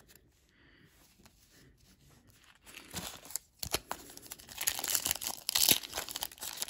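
Foil trading-card pack wrapper crinkling and being torn open by hand, starting about three seconds in and growing into a dense, crackly tearing near the end.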